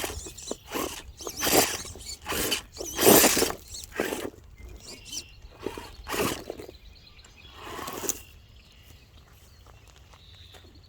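Ducks quacking: a run of loud, harsh calls that stops about eight seconds in.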